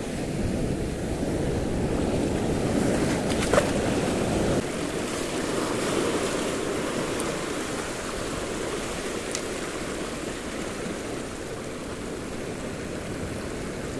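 Sea surf washing in shallow water along the shore, with wind rumbling on the microphone that drops away suddenly about four and a half seconds in.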